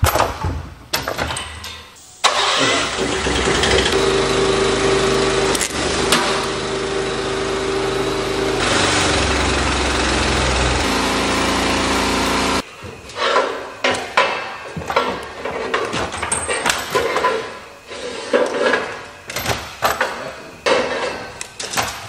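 An engine running steadily, its pitch shifting twice, then stopping abruptly about twelve seconds in. After that come irregular short knocks and clatter.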